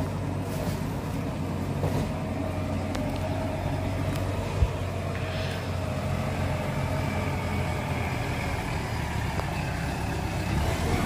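JCB 3DX backhoe loader's diesel engine running steadily as the machine drives along. A single short low thump comes about four and a half seconds in.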